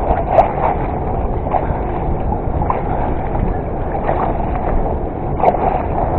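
Steady rushing noise with a sharp splash near the end as a hooked wels catfish thrashes at the surface close to the bank.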